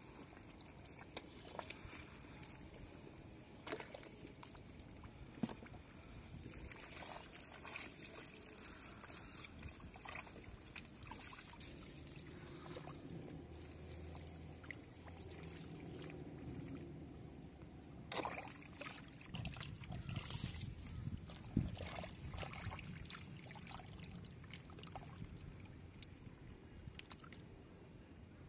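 Hands sloshing and groping through shallow muddy water and pulling at a clump of sedge: water trickling and dribbling, with scattered small splashes and rustling stems.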